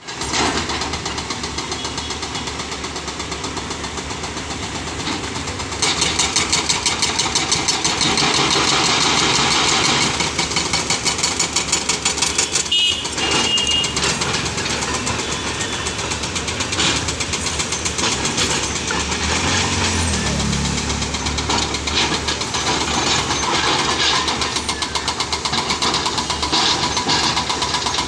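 Excavator diesel engines running under load, steady at first, then louder and pulsing rhythmically from about six seconds in. A brief high squeal comes about halfway through.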